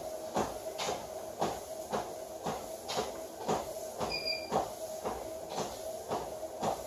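Treadmill at a walking pace: footfalls on the belt about twice a second over the steady whine of the motor. A short beep about four seconds in.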